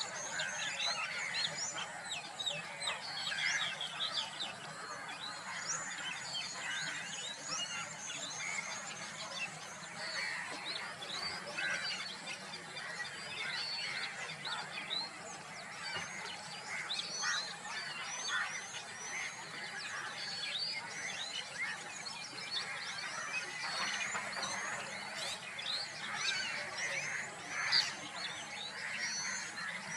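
A dense chorus of many birds calling at once, with short sweeping chirps and whistles overlapping continuously.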